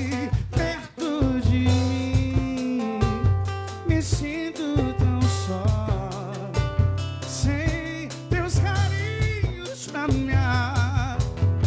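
Band playing a song with a drum kit and bass, with a melody voice singing over it.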